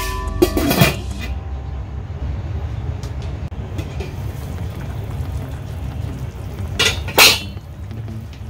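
Stainless steel lid clanging onto a large steel cooking pot, ringing for about a second. A steady low hum runs underneath, and about 7 seconds in two sharp knocks come as the lid is lifted off the pot again.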